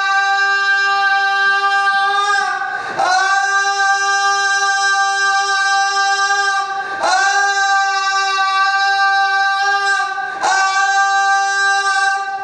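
A person's voice shouting one loud, high, steady note, held for several seconds at a time in four long stretches with short breaks for breath. This is the sustained shout that activates the sound-triggered water device.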